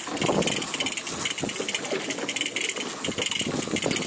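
Boat engine running steadily with a fast even pulse, over irregular knocks and rattles of fishing gear being handled on deck.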